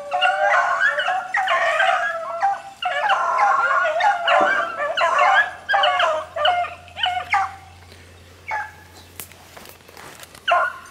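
Several rabbit-hunting hounds baying together in overlapping calls at different pitches, the sound of dogs giving voice on a rabbit's trail. After about seven seconds it thins to a few single calls.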